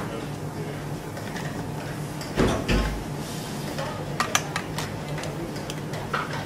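Metal kitchenware clinking as a spoon and small stainless steel saucepans knock against a plate and a steel counter. There is a louder knock about two and a half seconds in and scattered sharp clicks later, over a steady low hum.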